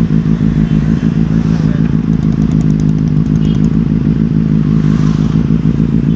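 Benelli TNT 600i's inline-four engine running steadily at low revs, with no revving, as the motorcycle rolls slowly along.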